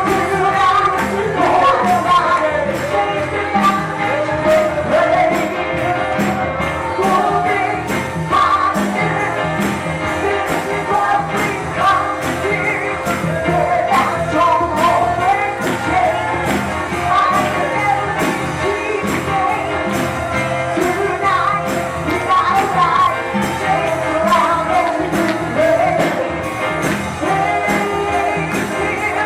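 Upbeat worship music with a fast, steady beat and tambourine, and voices singing.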